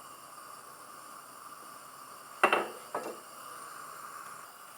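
Two sharp clatters of a kitchen utensil against a frying pan, about half a second apart and a little over two seconds in, the first louder. A steady hiss from the pancake frying runs underneath.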